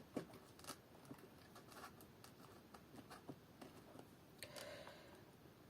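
Near silence, with faint scattered light clicks and a soft rustle about four and a half seconds in: small handling noises as decorations are placed in the arrangement.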